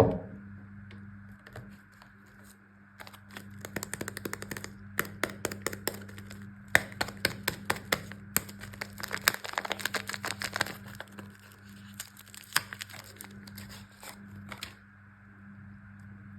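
A soap bar's wrapper being torn open and crinkled: a dense run of small sharp crackles that starts about three seconds in and stops near the end, over a low steady hum.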